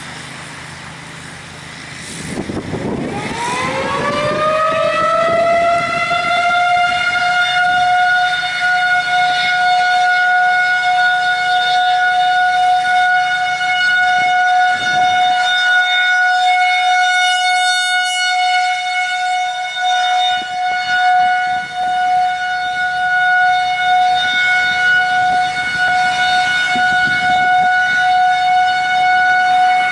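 Federal Signal 2001-SRNB rotating outdoor warning siren winding up about two seconds in, its pitch rising and levelling off by about five seconds, then holding a steady 740 Hz tone: the steady alert signal of its monthly test.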